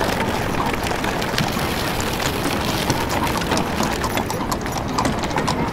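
Added street soundtrack of horse-drawn traffic: many horses' hooves clip-clopping in a dense, steady clatter, with carriages rolling along.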